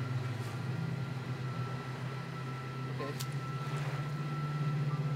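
Steady low engine hum with a thin constant high whine, an engine running at idle, and a short click about three seconds in.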